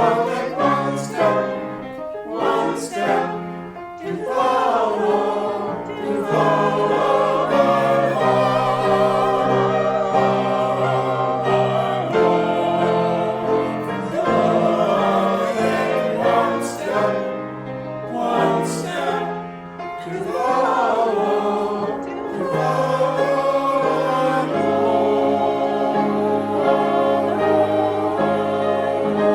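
A choir singing, with long held notes that waver in pitch and short breaks between phrases.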